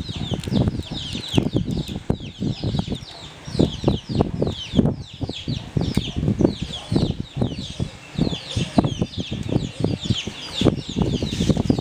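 Many small birds chirping constantly in quick, short falling chirps, over irregular low thumps and rumble.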